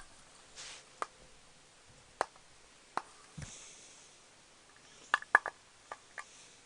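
Scattered small clicks and taps of a screwdriver working at stubborn screws on a hard drive's metal casing, with a quick cluster of sharper clicks about five seconds in.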